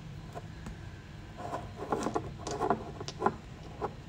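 Handling noise close to a phone's microphone: a run of soft, irregular taps and knocks starting about a second and a half in, over a low steady hum.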